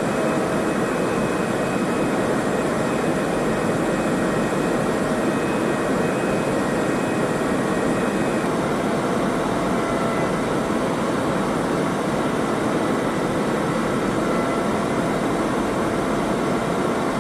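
Steady in-flight aircraft drone, the even rush of engines and airflow, with a few faint thin whines over it.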